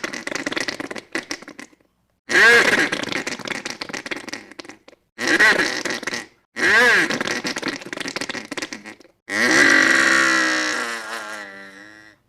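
A run of separate recorded sound effects: rasping, pitched blasts of one to three seconds each, every one rising and then falling in pitch, with short silences between them. The last, starting about nine seconds in, is the longest.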